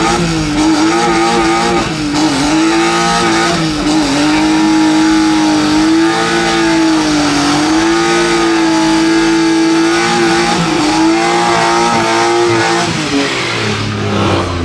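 Car engine held at high revs during a burnout, its pitch wavering slightly over a steady hiss from the spinning tyres; the revs drop away near the end.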